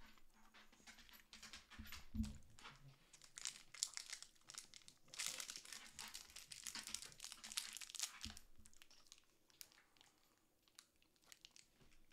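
Plastic wrapper of a mini Bubulubu candy bar crinkling and tearing as it is unwrapped, for several seconds, then dying down near the end. A soft low thump comes about two seconds in.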